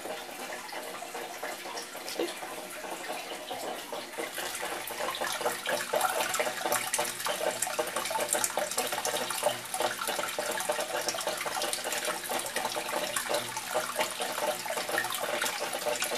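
Water trickling and splashing steadily in a turtle tank, growing a little louder about four seconds in.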